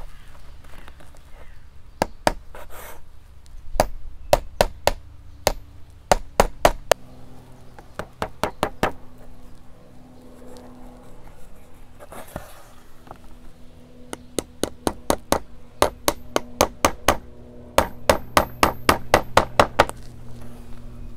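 Small hammer tapping frame nails through the wedge strip into the wooden top bar of a Hoffman beehive frame, pinning the wired foundation. Light, sharp taps in several short runs, the quickest and longest run near the end.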